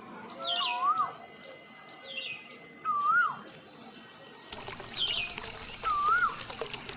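A bird singing a short whistled phrase, a rising-and-falling whistle with higher falling notes, three times about three seconds apart, over a steady high-pitched tone.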